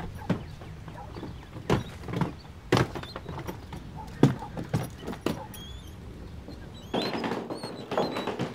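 A door and footsteps: a series of sharp knocks and thuds, with a scraping rattle near the end.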